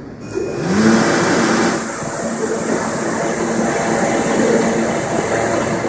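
R160B Siemens subway train standing at the platform: a hum from its onboard equipment rises in pitch about half a second in, then holds steady over a loud, even rushing noise.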